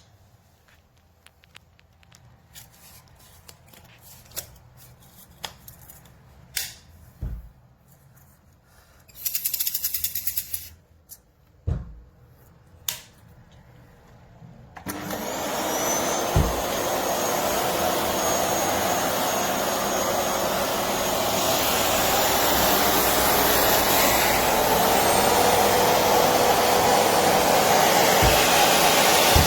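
A few handling clicks and knocks and a brief hissing burst, then about halfway through a Philips Series 3000 Performer Compact 900-watt bagged vacuum cleaner switches on and runs steadily, growing slightly louder.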